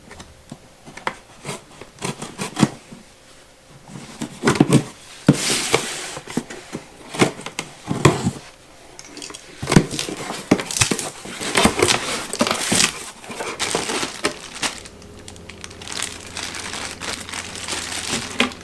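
Packaging being handled and unwrapped while welder accessories come out of their box: crinkling and tearing, with scattered clicks and knocks.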